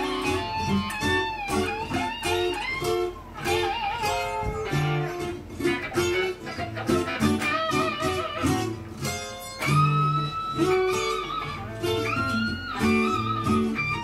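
Epiphone semi-hollow electric guitar playing a melodic single-note line, some notes held with a wavering vibrato and some bent up in pitch, over lower notes.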